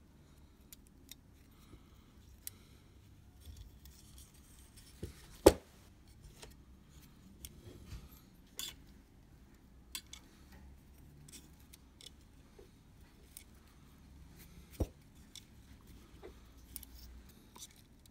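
Small scattered clicks and taps of tools and fingers working on a Leica II D's cloth shutter curtain and roller, with one sharp click about five and a half seconds in and another near fifteen seconds.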